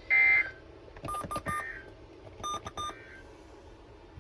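Emergency Alert System end-of-message data bursts from a NOAA Weather Radio broadcast: a loud, short screechy digital burst, then fainter repeats about a second and a half apart. Between them, two quick sets of short electronic beeps from a receiver.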